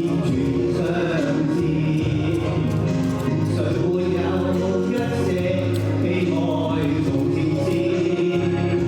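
Music with singing: a song sung over instrumental accompaniment, playing steadily.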